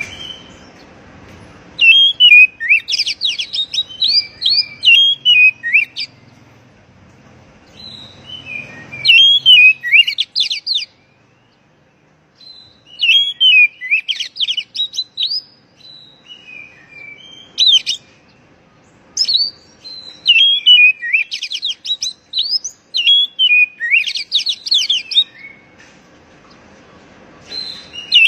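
Oriental magpie-robin (kacer) singing: loud phrases of rapid, varied whistles, slides and chattering notes, each a few seconds long, with short pauses between them.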